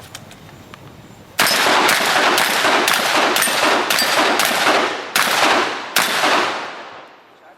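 Shotgun fired nine times in quick succession, about two shots a second, with slightly longer gaps before the last two. The sound rings on and fades for about a second after the final shot.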